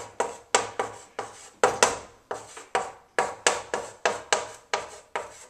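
Chalk writing on a chalkboard: a quick series of sharp taps and short scratching strokes, about four a second, as words are written out.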